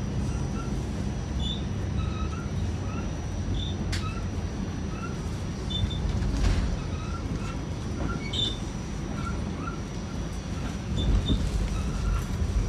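R46 subway train heard from on board: a steady low rumble, with a faint steady high whine and scattered short, faint high-pitched chirps.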